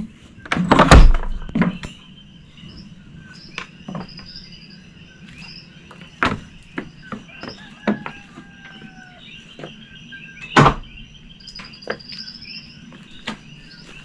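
A door thuds about a second in, followed by a few scattered knocks and steps. Underneath is a steady chorus of coquí frogs and insects chirping.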